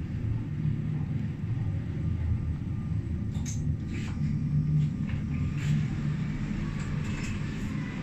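Glass-walled Schindler passenger lift car travelling upward: a steady low rumble of the ride, with a few light clicks and ticks from about three and a half seconds in.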